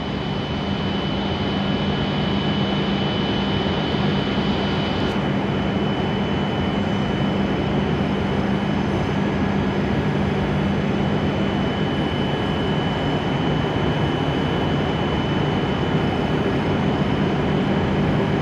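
E7 series Shinkansen standing at the platform with its auxiliary equipment running: a steady machine hum with a thin high whine, and a higher hiss that cuts off about five seconds in.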